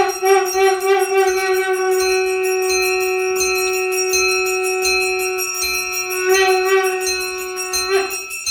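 Conch shell (shankh) blown in one long note, warbling in quick pulses at the start, then held steady, then warbling again before it breaks off near the end. A hand bell rings steadily beneath it, with a regular low beat: the conch-and-bell sounding of a Hindu puja.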